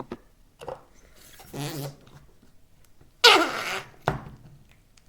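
Slime being squeezed and pressed, trapping and pushing out air in four wet, fart-like blasts. A short one comes about half a second in, then a longer buzzing one, then the loudest and longest about three seconds in, and a short sharp one just after it.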